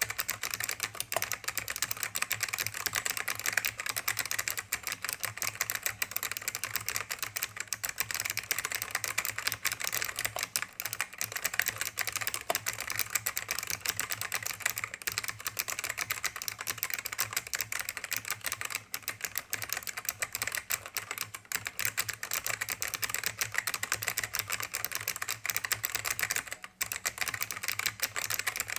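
Fast, continuous typing on an ACME 850 keyboard. Its Alps four-tab clone switches (white-type, possibly Hua-Jie AK series) give dense, crisp key clicks without a break.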